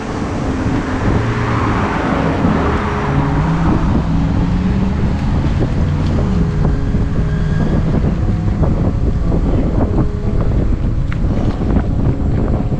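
Wind buffeting the microphone of a moving bicycle: a constant low rumble broken by frequent thumps.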